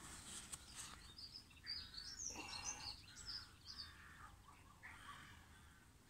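Faint songbird chirps and song: many short high notes scattered throughout.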